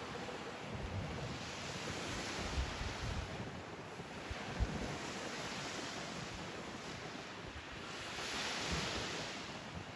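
Waves washing onto a beach, the surf swelling twice, about every five seconds, with wind rumbling on the microphone.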